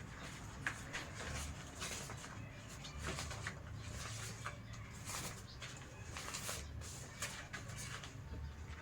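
Parts of a baby high chair being handled and fitted together: scattered clicks, knocks and rustles at an irregular pace.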